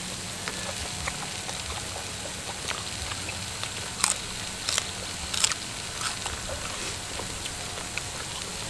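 Meat sizzling on a charcoal-heated mukata grill pan. Three sharp clicks come about four to five and a half seconds in.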